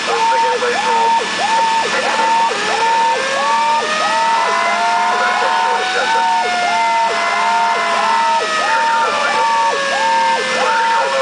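Fire truck sirens heard from inside the ladder truck's cab while it responds: an electronic siren yelps rapidly, about two cycles a second, while a mechanical siren winds up from about two seconds in and then slowly coasts down.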